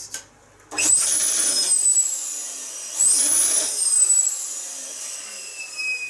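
Small electric balloon pump running in two back-to-back bursts of about two seconds each, inflating a long modelling balloon; each burst starts with a high motor whine that rises then falls slightly in pitch, and the second tails off gradually.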